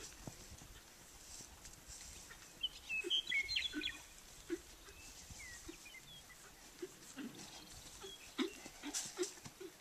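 A horse cantering around a dirt round pen, its hoofbeats thudding in an even rhythm about every two-thirds of a second from about three seconds in. Small birds chirp briefly near the start of the rhythm.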